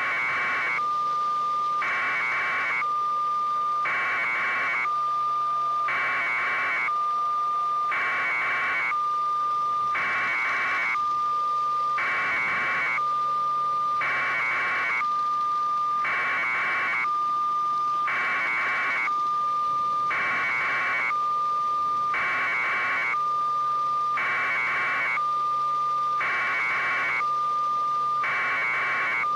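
Electronic alert tone: a continuous high steady tone, overlaid about once every two seconds by a short burst of harsher beeping, repeating evenly.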